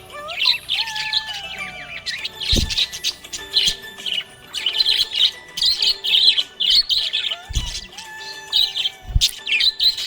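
Budgerigar chirping and warbling in a rapid, continuous chatter of short high chirps. Three dull low thumps come through, about two and a half, seven and a half and nine seconds in.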